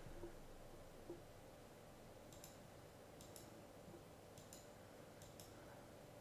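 Near silence: faint room tone with a few faint clicks, mostly in pairs, in the middle of the stretch.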